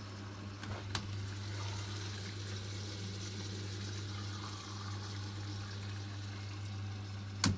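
Hotpoint WMFUG 942 washing machine taking in water: a steady hiss of running water over a low hum, with a small click about a second in and a sharper click near the end.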